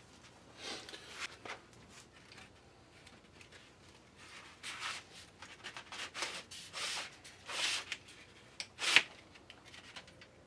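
A string of short rubbing and scraping noises, busiest in the second half, with a sharper, louder stroke about nine seconds in.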